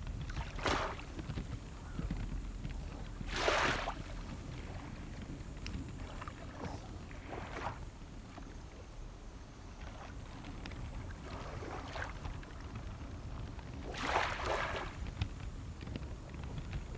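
Small waves washing in every few seconds over a steady low rumble of wind on the microphone.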